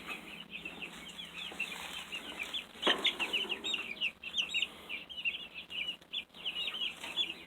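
A group of young chicks peeping: many short, high chirps, overlapping and continuous. A single sharp knock sounds about three seconds in.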